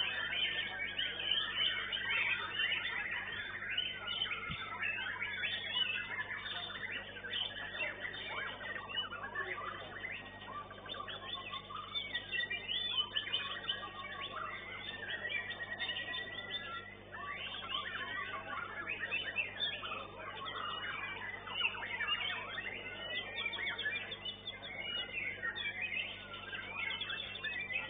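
White-rumped shamas (murai batu) singing, several birds at once in a dense, overlapping run of rapid chirps and whistled glides. The upper notes are cut off, as through a narrow-band recording.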